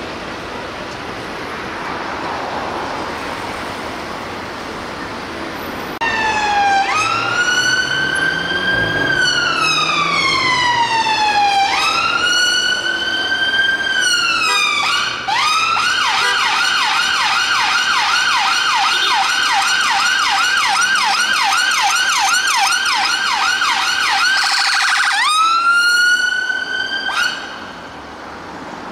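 Emergency-vehicle electronic siren over steady traffic noise. About six seconds in it starts with two slow wails, each rising quickly and falling over several seconds, then switches to a fast yelp of about four cycles a second for some ten seconds, goes back to the wail briefly and cuts off near the end.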